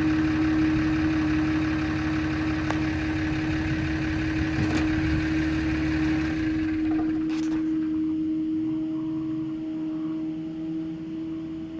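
Engine noise: a steady engine hum under a louder rush of noise that fades away about seven seconds in.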